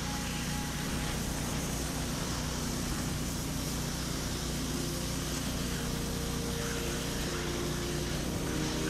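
Pressure washer running steadily: a low engine drone under the constant hiss of the water spray.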